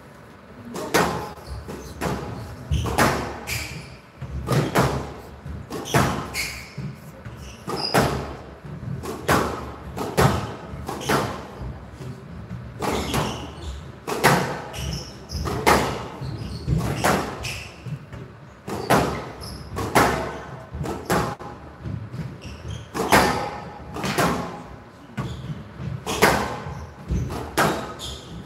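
A squash rally: rubber squash ball struck by rackets and hitting the walls of a glass court, a sharp hit roughly every second with short echoes around the hall.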